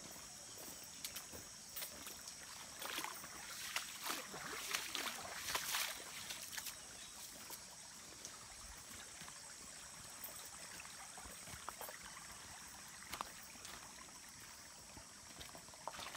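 Boots splashing and crunching on wet gravel through a shallow, trickling stream. The steps are loudest and most frequent in the first six seconds and thin out after. A steady high-pitched buzz runs underneath.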